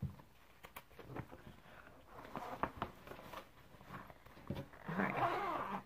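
Handling noise from a cross-stitch fabric piece: scattered rustles and light clicks, with a denser rustle about five seconds in.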